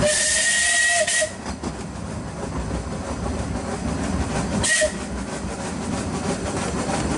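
Narrow-gauge steam locomotive's whistle: one blast of about a second with a hiss of steam, then a short toot about four and a half seconds in, over the steady running noise of the train and carriage on the track.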